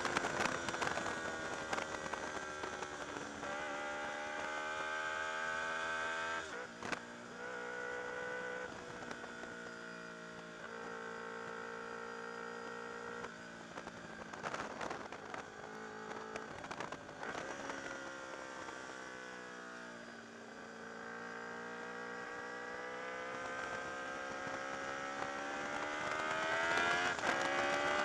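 Honda VFR motorcycle's V4 engine on the move, its pitch falling and rising as the bike slows for bends and pulls out of them, with several gear changes. The engine note climbs steadily through the last several seconds as it accelerates.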